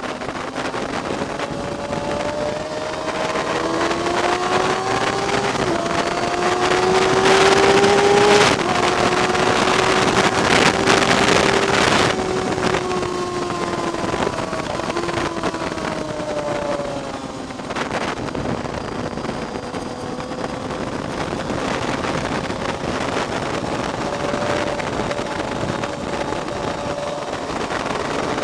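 Vehicle engine running hard while lapping a racetrack, its pitch climbing under acceleration and dropping back several times, under a steady rush of wind noise. It is loudest about a third of the way in.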